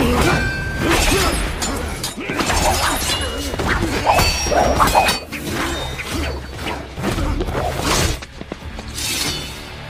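Film fight-scene sound effects: a barbed chain and a katana swung and striking, with many sharp hits and crashes in quick succession over background music.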